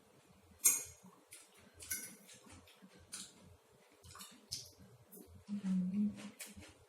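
Mouth-noise of eating: crisp bites and chewing of raw fresh vegetables, a few sharp crunches about a second apart, with a brief low hum near the end.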